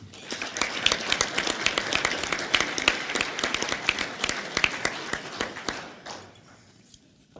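Audience applauding a speaker's introduction: many hands clapping together, swelling just after the start and dying away about six seconds in.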